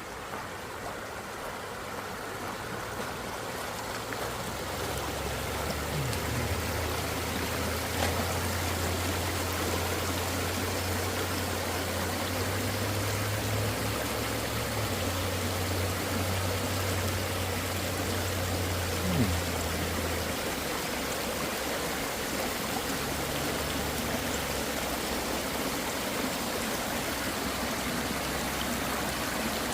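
Water flowing over rocks in a creek or small cascade, a steady rushing that grows louder over the first few seconds and then holds.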